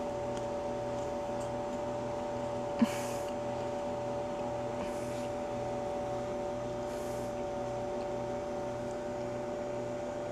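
Steady electrical hum of a running appliance, with a low pulsing throb underneath, and one small click about three seconds in.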